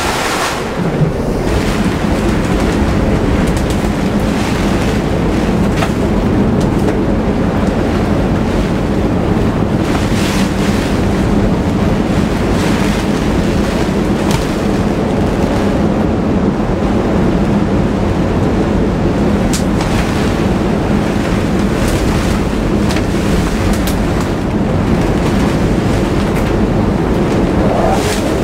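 Tropical-cyclone wind blowing around a moored sailboat, heard from inside its cabin as a constant roar, with a few brief clicks.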